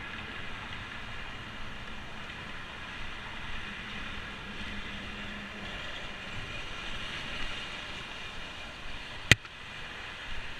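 Steady rush of passing road traffic and bicycle riding noise heard from a handlebar-mounted camera, with one sharp knock about nine seconds in.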